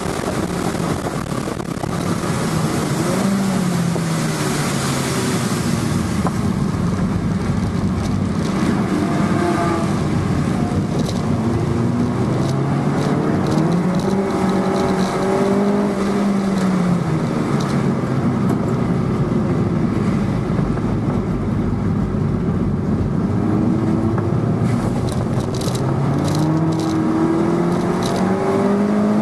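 2011 MINI Cooper S's turbocharged four-cylinder engine heard from inside the cabin under hard track driving, its note rising and falling in pitch over several seconds at a time, over a steady hiss of tyres on a wet track.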